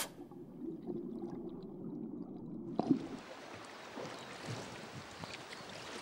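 Muffled low underwater rumble for about three seconds, then a sudden switch to the steady rush of river water flowing.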